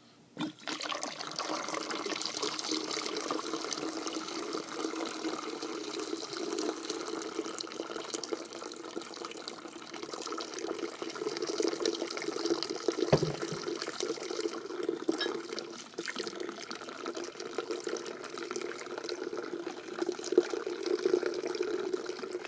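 Liquid poured steadily from bottles into a pitcher, running without a break, with one soft knock about halfway through.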